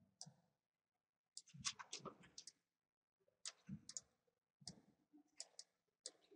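Faint clicking from a computer mouse and keyboard, in about five short clusters of rapid clicks with silent gaps between them.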